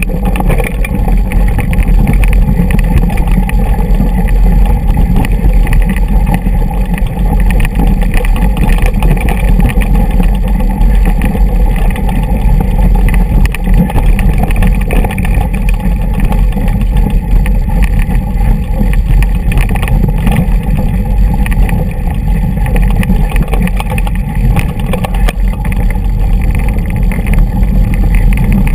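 Mountain bike rolling fast down a rocky dirt trail: a loud, constant low rumble with a dense rattle of jolts as the tyres and frame go over stones, and wind buffeting the microphone.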